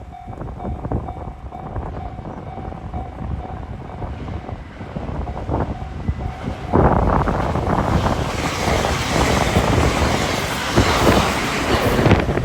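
Level crossing warning alarm ringing with a steady repeating tone. About seven seconds in, a train arrives and passes over the crossing with a loud rushing of wheels on rail that grows brighter and drowns out the alarm.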